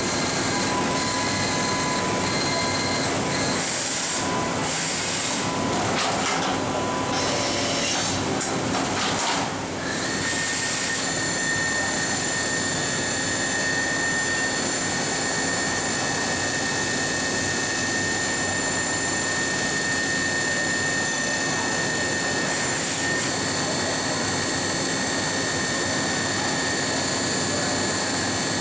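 Mitsubishi MH4050 horizontal machining center running through an automatic pallet change. For about ten seconds there is shifting mechanical noise with intermittent tones. Then it settles into a steady running noise with a constant high whine.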